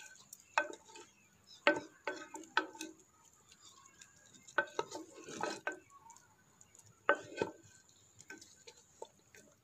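Wooden spoon stirring mutton pieces in broth inside a clay pot, with irregular clusters of knocks and scrapes against the pot.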